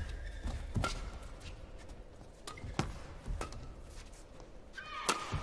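Badminton rackets striking the shuttlecock in a fast doubles rally: a string of sharp hits at uneven intervals, with players' court shoes squeaking on the floor, most clearly near the end.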